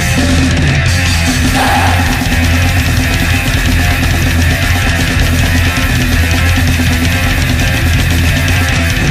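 Black metal band playing from a demo recording: distorted guitars, bass and drums in a dense, unbroken wall of sound.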